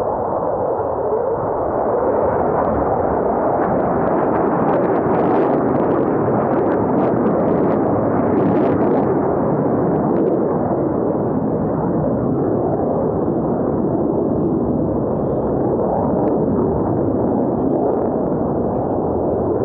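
Several Blue Angels F/A-18 Super Hornet jets passing, a loud steady jet roar with crackling in the middle.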